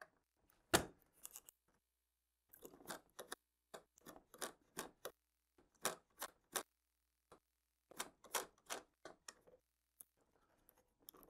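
A long wing-retaining thumb screw being twisted by hand into the wing of a foam RC model airplane: irregular small clicks and scraping in short clusters, with a short pause about two seconds in.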